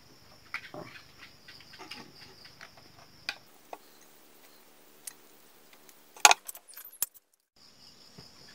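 A metal spoon clinking and scraping against a plate and a plastic bowl while eating, over a steady chorus of crickets. A single sharp knock stands out about six seconds in.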